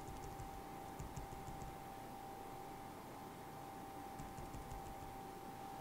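Faint clusters of small clicks from computer controls being worked while the on-screen page is scrolled, heard three times. A steady electrical tone and low room noise sit underneath.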